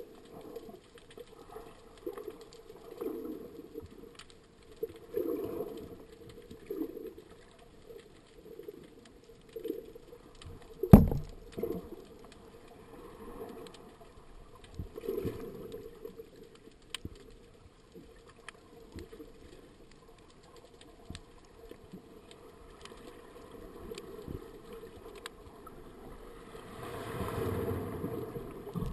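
Muffled underwater swishing of water moving past a diver's camera housing as he swims slowly, in uneven swells. A single sharp knock near the middle is the loudest sound.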